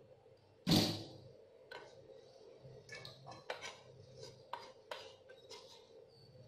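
Hand scraping and sweeping shredded cabbage across a wooden cutting board, heard as light taps and rubs. A single loud knock on the board comes about a second in, and a faint steady hum runs underneath.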